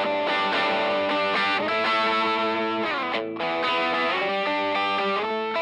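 Telecaster-style electric guitar overdriven through an Archer overdrive pedal and a Fender Blues Junior amp, strumming a quick riff of chords. Some chords slide down in pitch about three seconds in.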